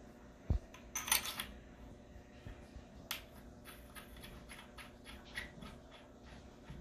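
Metal clinks and small ticks of a Remington-pattern choke tube being handled and screwed by hand into a threaded steel adaptor on a shotgun barrel. A dull thump comes about half a second in, the loudest rattle of clinks about a second in, and then one sharp click and a run of faint ticks as the tube is turned.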